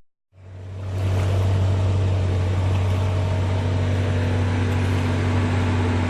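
A steady engine drone with a strong low hum and a constant higher tone over it, fading in after a brief dropout at the very start.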